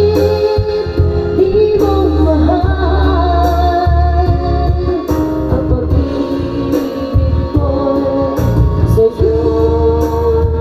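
A woman singing a slow ballad into a handheld microphone over a karaoke backing track, holding some notes for a second or more.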